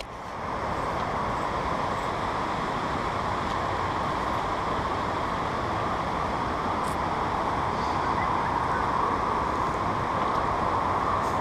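Steady, even rushing noise that holds at one level throughout, with no rhythm or pitch in it.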